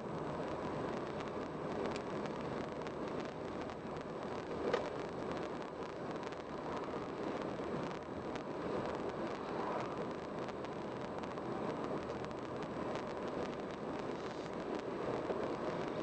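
Steady road and tyre noise of a car driving at speed, with a single short click about five seconds in.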